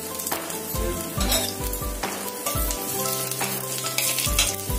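Whole cumin seeds, dried red chillies and a bay leaf sizzling in hot mustard oil in a metal kadai. A steel spatula stirs and scrapes against the pan: the tempering (phoron) step of a fish curry.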